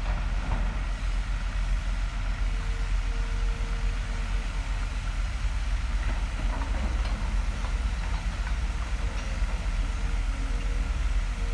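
Construction-site machinery: a heavy engine running steadily with a deep low rumble, with faint scattered knocks over it.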